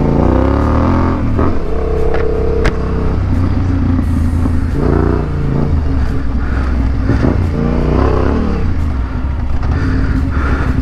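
Yamaha Ténéré 700's parallel-twin engine running while riding a rough dirt track, its pitch rising and falling repeatedly as the throttle opens and closes, with a few sharp knocks from the bike over the rough ground.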